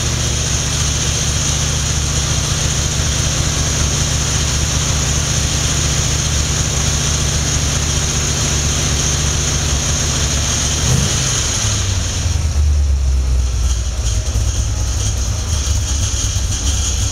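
Holden 308 V8 'red motor' with a 286 cam, running steadily at a fast speed on an engine dyno. About eleven seconds in, the revs drop and it runs on at a lower, slower speed.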